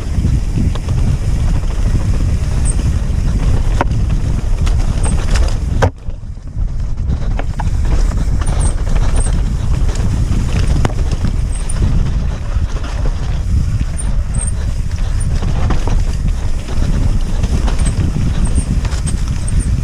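Wind buffeting the camera microphone during a fast mountain-bike descent on a dirt singletrack, with sharp knocks and rattles from the bike over rough ground.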